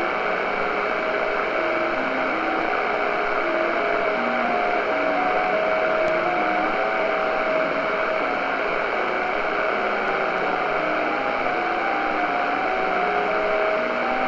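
JT65 amateur digital-mode signals received in SSB on a Tecsun PL-600 shortwave radio: several overlapping strings of steady tones, each jumping from pitch to pitch a few times a second, over a steady band hiss.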